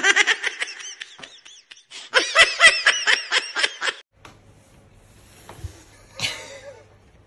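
A person laughing hard in rapid bursts for about four seconds, then cut off abruptly. A short, fainter sound follows about six seconds in.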